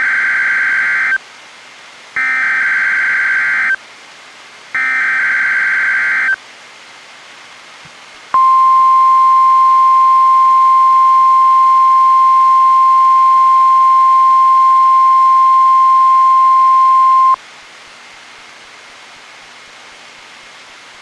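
NOAA Weather Radio test signals from a weather radio receiver. Three short bursts of SAME digital header data come about a second apart. After a pause comes the steady 1050 Hz warning alarm tone, held for about nine seconds and cutting off sharply, followed by the receiver's steady hiss.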